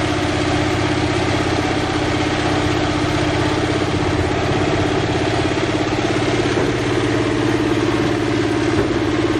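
An engine running steadily at an even idle, over the continuous splashing and churning of a dense shoal of pangasius catfish thrashing at the surface for feed.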